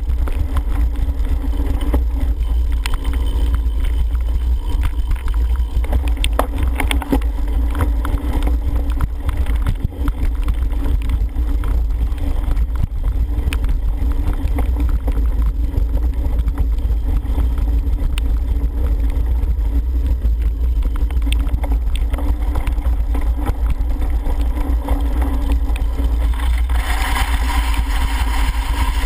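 Wind buffeting a helmet-mounted camera microphone on a cyclocross bike ridden fast over wet grass and mud, a steady low rumble broken by scattered knocks and rattles from the bike over bumps. A louder hiss joins near the end.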